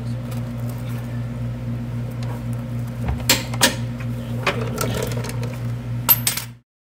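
A steady low mechanical hum, with a few sharp clicks and clanks of hand tools about three seconds in and again near the end; the sound then cuts off abruptly.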